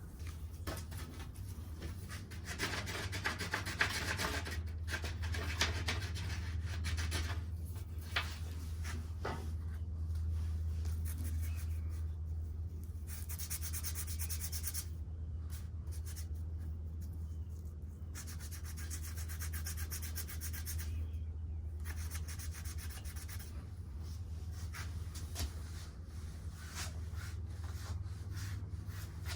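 A deer shed antler being rubbed by hand, with repeated scraping strokes and a few short pauses. The rubbing stains the antler back to a natural colour. A steady low hum runs underneath.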